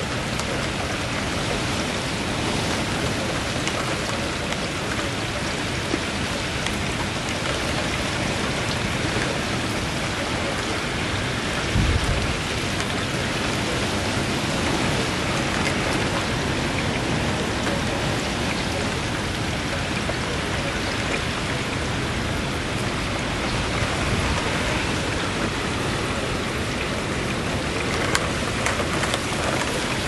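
Strong gusty wind and rain: a steady rushing noise, with a brief low thump about twelve seconds in.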